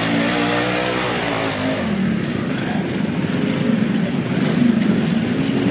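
Single-cylinder classic trials motorcycle engine working in low gear through a muddy stream section, its pitch rising and falling as the rider blips the throttle.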